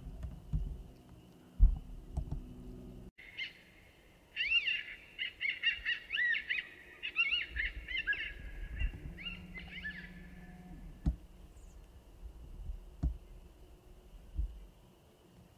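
Electronic predator caller playing a coyote 'tiny pup distress' sound, a lure for coyotes: a run of high, rising-and-falling pup yelps and whines from about three seconds in to about ten seconds in. A sharp thump sounds about one and a half seconds in, among low handling thumps, and a few sharp knocks follow the call.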